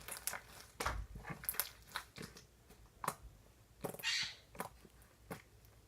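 Slime with big foam beads being squeezed and worked by hand, giving irregular crunchy crackles and pops.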